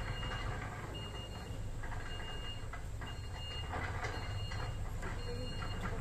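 A back-up alarm beeps about once a second over the low, steady rumble of a heavy diesel truck engine moving slowly.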